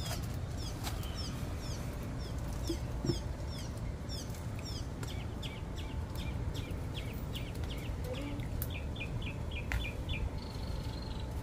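Small birds chirping: many short, high notes that slide downward, in a quick even run of several notes a second through the middle, over a steady low rumble.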